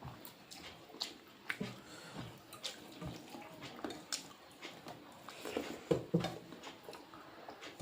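Eating sounds: soft wet mouth noises of chewing and smacking, with scattered light clicks, some against a plate.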